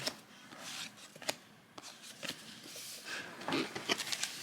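Baseball cards being handled and shuffled by hand, with light rustles and a few sharp clicks.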